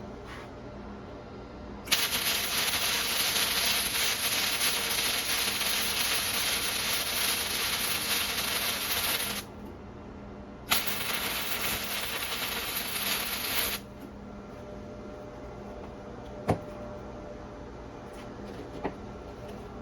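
Flux-core wire welding arc crackling and sizzling steadily, in two passes: a long run of about seven seconds, a short pause, then about three seconds more. The stainless E308 flux-core wire is running on DC electrode negative at 50 amps, a setting still hot enough to burn through the stainless. Two sharp knocks follow near the end.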